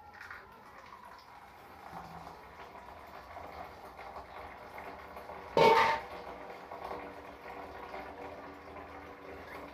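Water running in a thin stream from the spigot of a plastic water container into a steel sink, a steady faint splashing. About five and a half seconds in, a short loud sound stands out.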